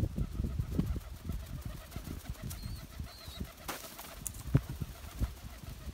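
Domestic pigeons flapping their wings as they land and shuffle about, with low cooing.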